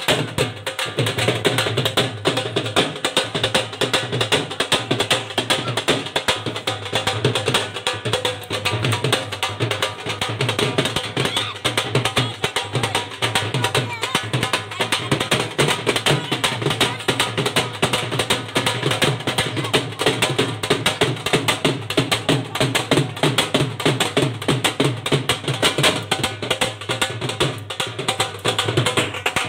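Dhol drum beaten with sticks in a fast, steady rhythm, a rapid run of loud strokes.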